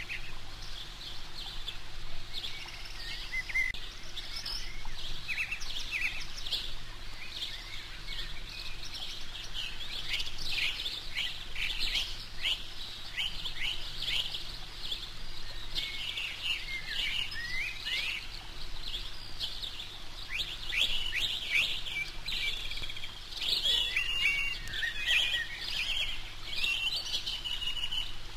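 Eurasian coot chicks peeping: a steady stream of short, high chirps, busier and louder in the second half.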